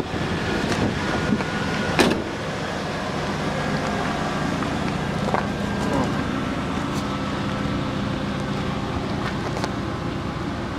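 A 1989 Chevy C1500's swapped-in 350 V8 idling steadily. A single sharp knock comes about two seconds in.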